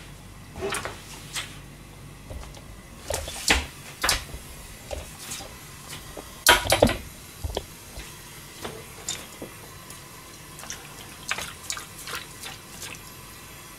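Kitchen clatter: scattered knocks and clinks of pans and cooking utensils being handled. The loudest is a pair of sharp clanks about two-thirds of the way through, over a faint steady background.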